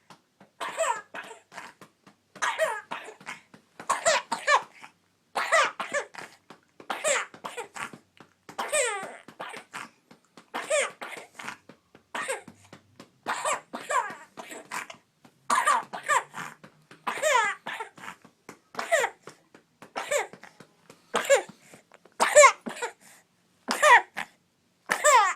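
A baby coughing over and over in short high-pitched fits, a new fit about every second and a half. It is a wet, chesty cough from mucus being brought up.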